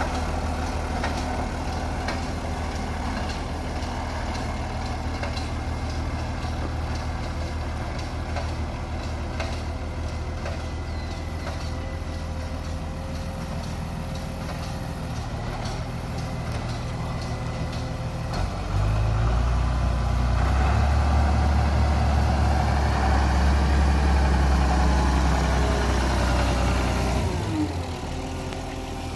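The six-cylinder diesel engine of a 1976 White 2-105 Field Boss tractor, running steadily at idle. About two-thirds of the way through it gets suddenly louder and deeper and holds there, then winds back down near the end.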